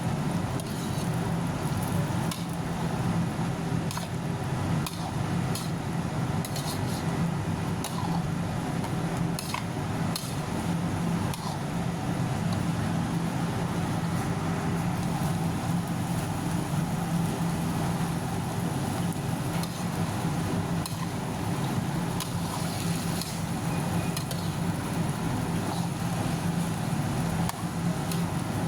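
A metal spatula stirring in a cooking pan, with scattered sharp clinks against the pan over a steady sizzle and low hum.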